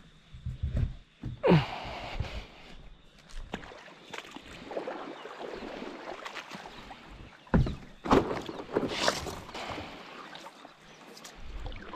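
Paddle strokes and water swishing and splashing as an inflatable stand-up paddleboard is launched onto calm water and paddled. The louder splashes come about a second and a half in and again around eight to nine seconds in.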